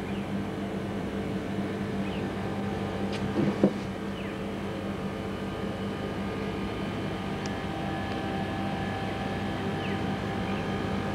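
Steady mechanical hum with a few short, high, falling chirps over it, and one brief bump about three and a half seconds in.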